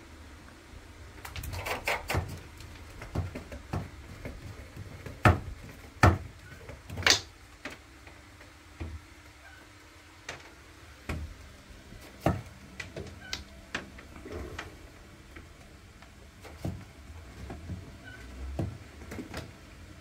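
Seagull knocking its beak on the windowsill: a string of irregular sharp taps and knocks, the loudest three in quick succession about five to seven seconds in.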